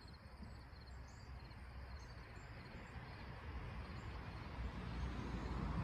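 Outdoor ambience with faint, short repeated insect chirps, over a low rumble that grows steadily louder toward the end.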